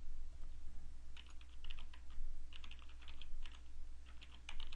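Typing on a computer keyboard: clusters of quick key clicks starting about a second in, with short pauses between the clusters.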